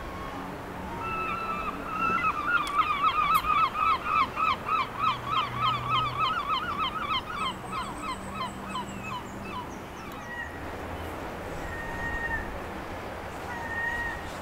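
Waterfowl calling: a long, fast run of honking calls, about three a second, that grows loud about two seconds in and fades away by about ten seconds. A few short, higher whistled notes follow near the end.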